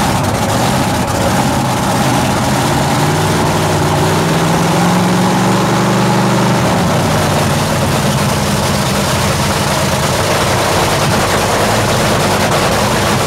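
Drag racing car's engine running loudly at a fire-up, idling steadily; its pitch climbs slowly from about four seconds in and drops back sharply near seven seconds.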